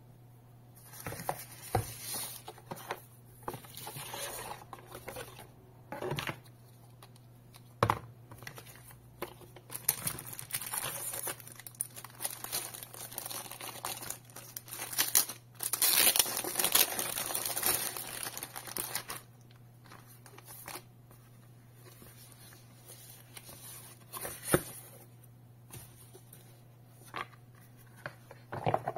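Clear plastic packaging crinkling and rustling in bursts as a bagged tablet case is handled, loudest for a few seconds about halfway through, with a few light knocks of items being set down. A steady low hum sits underneath.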